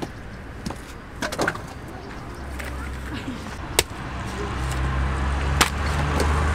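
Several sharp axe chops into firewood on a chopping block, spaced irregularly. From about halfway through, a vehicle engine's low rumble grows louder.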